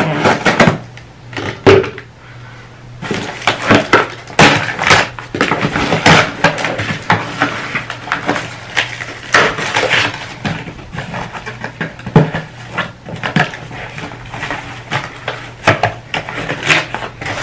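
Small cardboard shipping box being opened by hand: scissors cutting the packing tape at the start, then the cardboard flaps pulled apart and torn, a busy run of crackling, tearing and scraping from about three seconds in.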